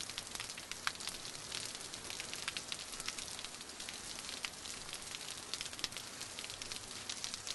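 Rain pattering steadily, with many small drips and ticks scattered through it.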